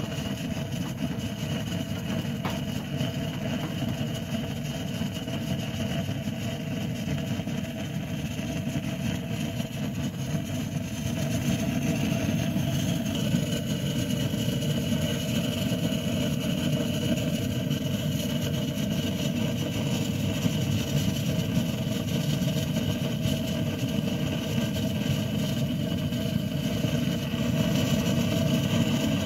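Gas blowtorch burning steadily with a low, even roar, its flame played on the side of an aluminium drink can. It gets louder about twelve seconds in.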